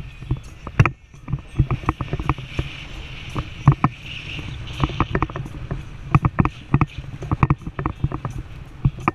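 Off-road 4x4 driving over a sandy, rutted desert trail, picked up by a camera mounted on the hood: a steady low rumble of engine and tyres with frequent irregular knocks and rattles as the vehicle bounces over the ruts.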